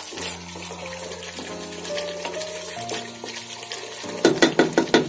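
A spatula stirs thick chicken roast gravy in a pot. About four seconds in there is a quick run of about six loud scrapes against the pot. Background music with long held notes plays under it.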